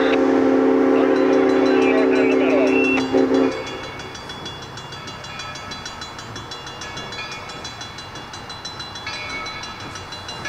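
Steam locomotive's chime whistle blowing a long, loud blast that cuts off about three and a half seconds in. A fainter steady ringing carries on after it.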